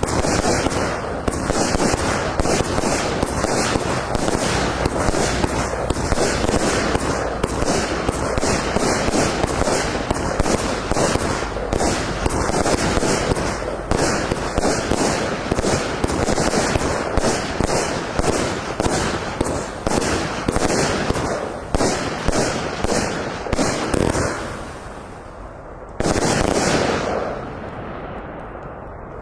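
Funke 49-shot fan firework cake firing: a fast, unbroken stream of launches and bursts of red and white strobe stars, heard as dense crackling and popping. It thins out, then a sudden louder volley comes near the end and dies away.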